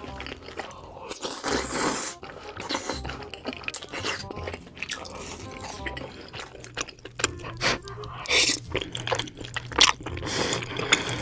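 Close-miked eating: chewing with wet smacks, and long slurps of wide glass noodles in a creamy sauce, about a second in and again near the end, over steady background music.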